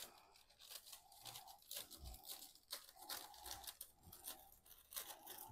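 Faint scissors cutting open the tops of bulb packaging bags, with crinkling and crackling of the bags as they are handled. The snips and crackles come irregularly throughout.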